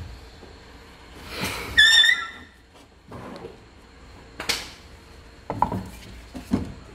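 Ceramic ware being handled and set down: a rub, then a sharp clink with a short ring from a plate about two seconds in, followed by several separate knocks of pieces put down on a surface.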